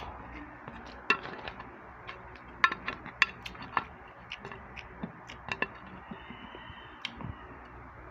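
Scattered sharp clicks and taps of a plastic serving spoon against a glass baking dish and plates, about a dozen, the loudest near the middle, over a steady low hiss.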